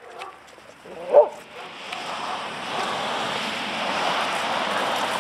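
A dog gives a single short bark about a second in, followed by a steady rushing hiss that builds up and holds to the end.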